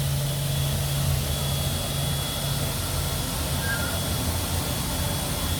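Steady machine noise from a CNC router shop setup: the vacuum table pump and dust extraction running, an even hiss with a faint high whine. A low hum drops out about a second and a half in.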